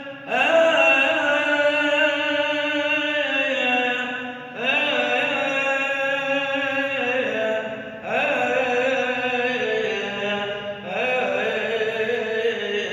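A single man's voice chanting a liturgical prayer in four long, held phrases, each starting with an upward slide into sustained notes.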